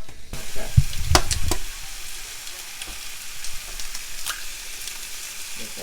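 Eggs frying in a hot pan: a sizzle that starts suddenly just after the start and then runs steadily. A few sharp knocks come about a second in, with light clicks of a utensil in the pan later.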